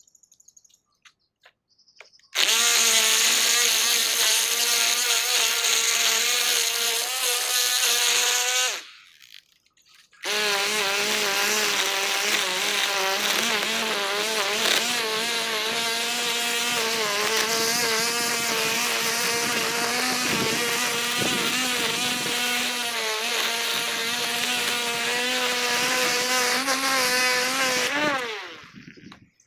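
String trimmer (weed eater) engine running at a steady high pitch, cut off for about a second and a half about a third of the way in, then running again until it winds down, falling in pitch, near the end.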